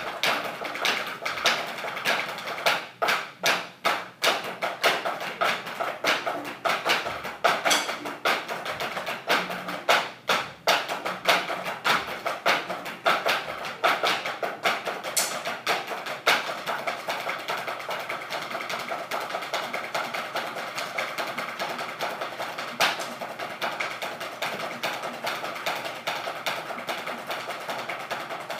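Several drummers playing a snare solo in unison with drumsticks on wooden practice pads: a fast, dense stream of stick taps. Strong accented strokes stand out in the first half, and the strokes run more evenly later on.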